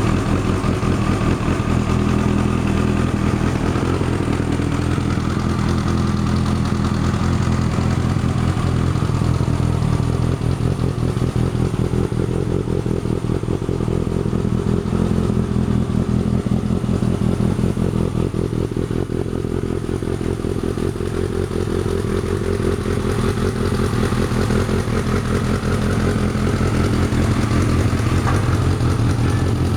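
Kawasaki ZZ-R1100 D7's inline-four engine running steadily at low revs, making an abnormal mechanical noise.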